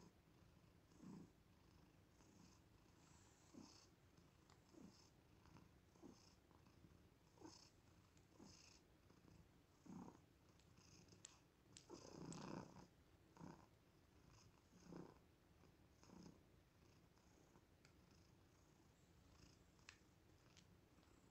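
Mother cat purring faintly while her newborn kitten nurses, the purr swelling in soft pulses about once a second with each breath, one longer and louder about halfway through.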